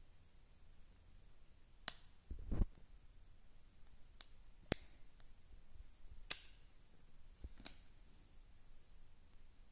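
A phone's glass back being handled by fingers: about five sharp, separate clicks and taps, with a low thump about two and a half seconds in.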